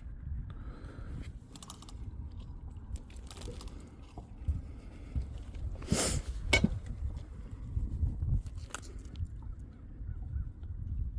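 Scattered clicks, knocks and rustles of a caught crappie and tackle being handled, over a low steady rumble; the loudest knocks come about six seconds in.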